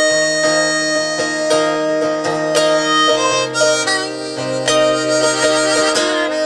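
Acoustic folk band playing an instrumental passage, with a harmonica carrying the melody over plucked acoustic strings and a low bass line.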